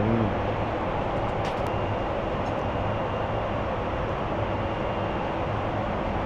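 Steady in-flight cabin noise of a Boeing 747-8 heard from inside the cabin: an even rush of engine and airflow noise. A couple of faint clicks sound about a second and a half in.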